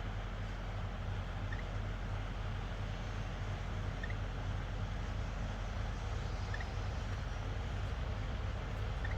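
Panasonic F-MX405 stand fan running steadily: a low motor hum under the whoosh of the blades, with a faint short chirp about every two and a half seconds. This is the faint, growing stage of the abnormal noise the fan is under warranty claim for.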